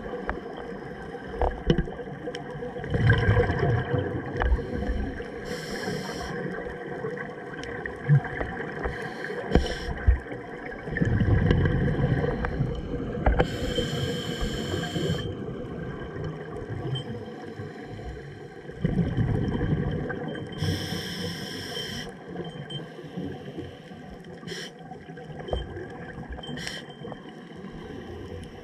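Scuba diver breathing through a regulator, heard underwater: about three breaths, each a high hiss of inhaling and a low burst of exhaled bubbles, roughly every eight seconds.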